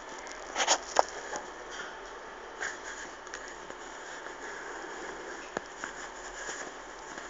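Faint handling noise: a brief cluster of scrapes and clicks about a second in, then a few scattered small ticks over a steady background hiss.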